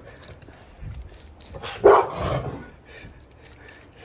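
A bully-breed dog barks once, about two seconds in, playfully worked up by a squirt bottle being waved at it.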